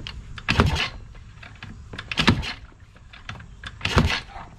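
Polaris Sportsman 90's 90cc two-stroke engine being cranked in three short bursts, about a second and a half apart, without catching: it will not start after its carburetor was cleaned and refitted.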